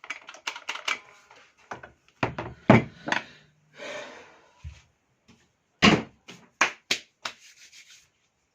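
Hands handling the parts of a Makita electric chainsaw: a run of sharp clicks and knocks, with a short rubbing scrape about four seconds in.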